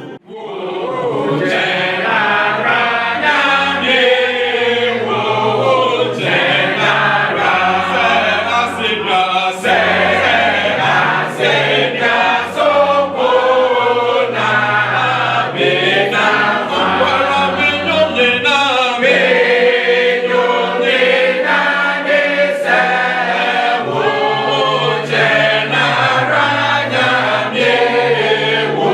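A mixed choir singing a hymn in several voice parts, with a low bass line moving in steps under the upper voices.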